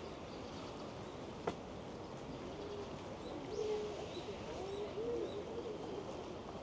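A pigeon cooing: a series of low coos starting about two and a half seconds in, over a steady hiss of rain. There is one sharp click about a second and a half in.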